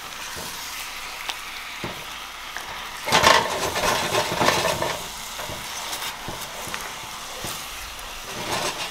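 Chicken in thick gravy sizzling in a pan on the stove, a steady frying hiss. About three seconds in, a louder stretch of stirring and scraping in the pan for a couple of seconds.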